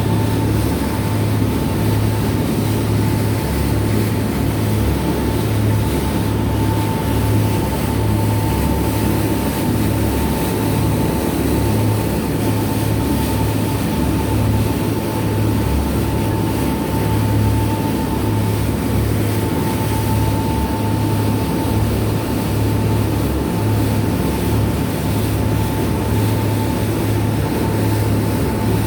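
A tour boat's engines run at a steady low drone under a constant rushing noise, with a thin steady whine above.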